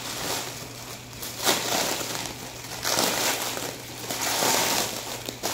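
Clear plastic bubble wrap crinkling and rustling as it is pulled and crumpled by hand, in several uneven bouts.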